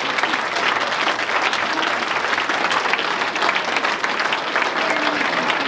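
A roomful of people applauding, a dense, steady patter of many hands clapping.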